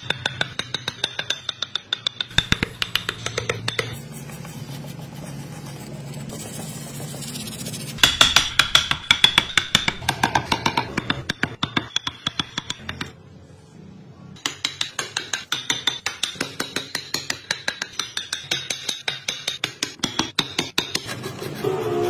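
Background music with a steady, fast clicking beat over sustained tones, which drops out for about a second and a half partway through.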